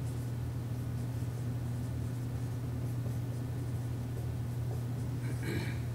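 Dry-erase marker writing on a whiteboard, faint scratchy strokes over a steady low room hum.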